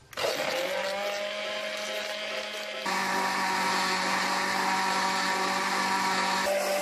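Electric countertop blender starting and running, pureeing watermelon chunks with sugar and water. The motor's pitch rises as it spins up just after the start, then runs steadily, getting louder about three seconds in.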